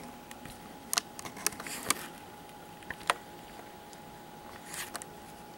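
Small sharp clicks and taps from a plastic action figure being handled, four clicks in the first three seconds and a soft rustle near the end, over a faint steady hum.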